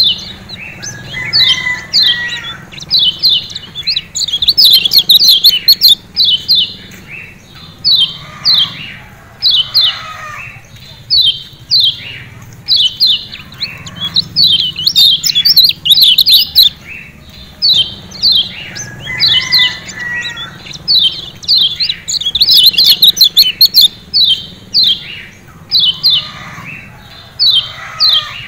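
White-eye (kecial kuning) giving 'ciak ciak' calls: clusters of rapid, high, sharp chips with short pauses between them.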